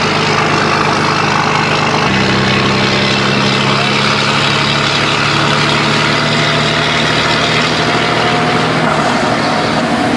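Scania 112 truck's diesel engine running at a steady speed, its note shifting about two seconds in and changing again near the end.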